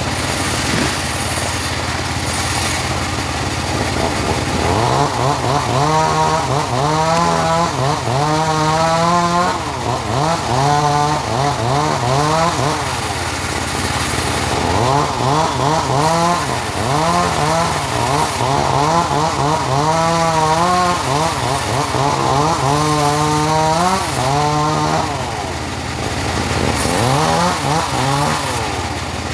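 Engine-driven portable sawmill saw cutting teak wood. The engine's pitch keeps sagging and recovering as the blade works through the log.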